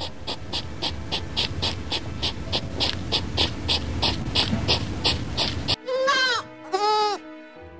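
A rapid, even pulsing at about four beats a second, then two bleats from a Barbary sheep (aoudad), each rising and falling in pitch, about six seconds in.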